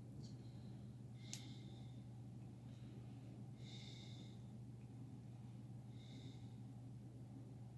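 Faint, regular breaths, a short puff about every two and a half seconds, over a steady low hum, with one light click about a second in.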